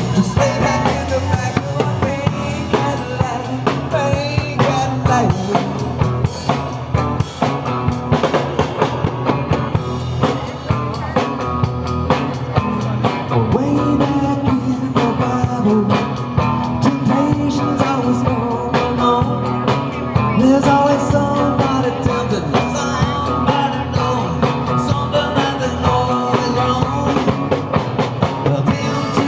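Live rock band playing a rock-and-roll cover: electric guitars, bass guitar and a drum kit, with a man singing lead vocals into the microphone.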